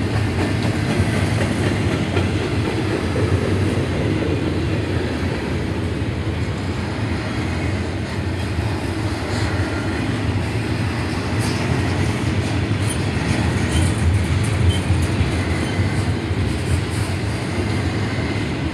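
Double-stack intermodal freight train rolling slowly past over a grade crossing: a steady rumble of wheels and cars on the rails, with some clickety-clack.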